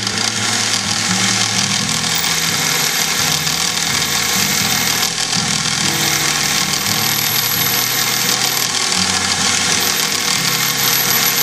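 Milling machine spindle running steadily while a No. 42 twist drill cuts a hole into a small metal blank held in the mill vise.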